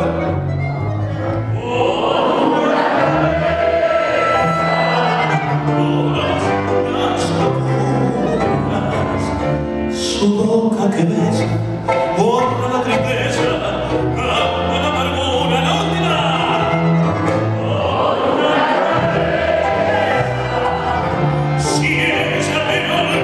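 Tango sung by a male voice with live bandoneón accompaniment. The voice comes and goes between held bandoneón chords.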